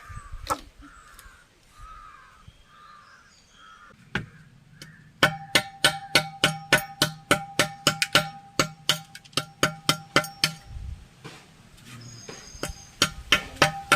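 Background music with a fast beat of sharp percussive clicks over a held tone, starting about five seconds in. Before it, a run of short repeated calls.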